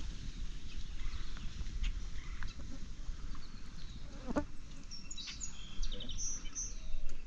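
Birds chirping in short high calls and trills, mostly in the second half, over a steady low rumble.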